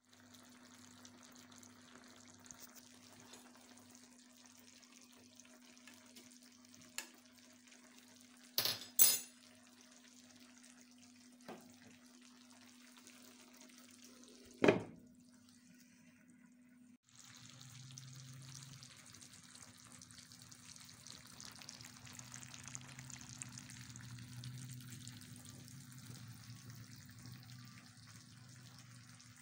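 Food simmering in a clay tagine, a soft steady sizzling hiss over a low hum. It is broken by a few sharp knocks, the loudest a quick double knock about nine seconds in and one about fifteen seconds in, like the clay lid being handled. The hiss gets louder about seventeen seconds in.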